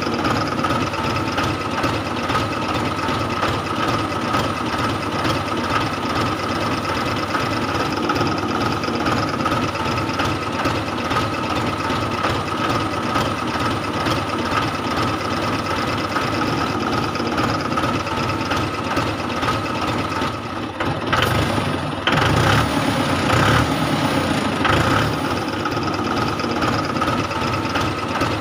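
Small electric motors and gear trains of home-made toy tractors running steadily, a constant high whine with fine rapid ticking. A few louder bumps come about three-quarters of the way through.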